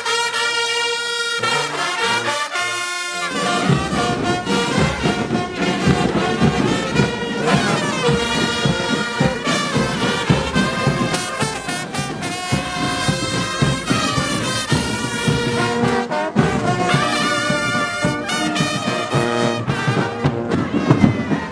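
Brass band playing, with trumpets and trombones holding sustained notes; drums come in about three seconds in and carry a steady beat.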